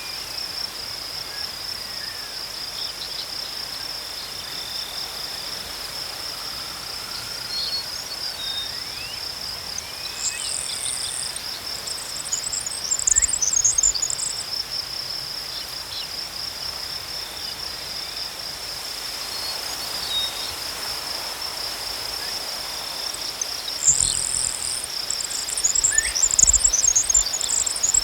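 Insects trilling in a steady, high, pulsing chorus, with bursts of high bird chirping about a third of the way in and again near the end, and a few thin gliding bird whistles. A low rumble of wind joins in the last few seconds.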